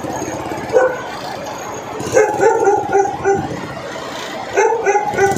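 A dog barking in short runs: one bark about a second in, a quick string of barks a little after two seconds, and another string near the end. Under it a heavy truck engine runs steadily.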